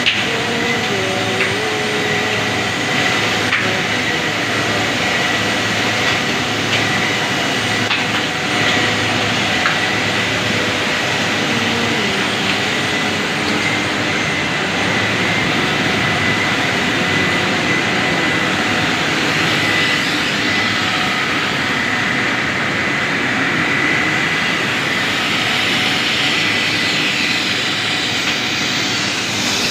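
Plastic-making machine running, a steady mechanical noise with a steady high whine over it.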